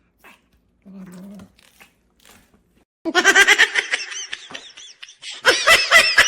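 A person laughing hard in quick repeated bursts, starting about halfway in, after a short low hum about a second in.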